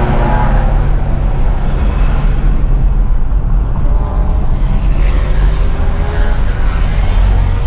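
Motor vehicle engines running with a heavy, steady low rumble; an engine whine falls in pitch at the start and another rises near the end, as vehicles pass or rev.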